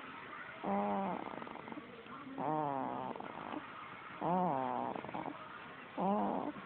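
Snoring: four pitched, whistly snores about every 1.7 seconds, each about half a second long and bending slightly in pitch, with quiet breathing between them.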